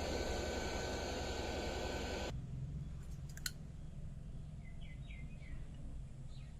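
Hot-air rework station blowing with a steady rushing hiss and a thin whine, cutting off abruptly about two seconds in. A few sharp clicks and faint short chirps follow.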